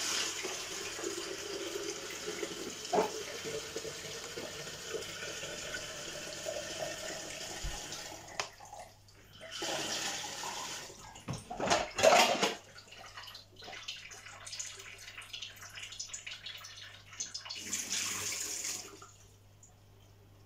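Tap water running into a kettle as it is filled, with a tone under the rush that rises slowly as the kettle fills. The flow stops about eight seconds in, then runs again briefly a few times, with a sharp knock around twelve seconds in.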